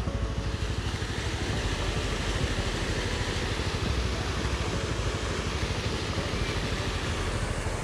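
CF Moto 520L ATV's single-cylinder four-stroke engine running with a fast, even pulsing, under a steady broad hiss.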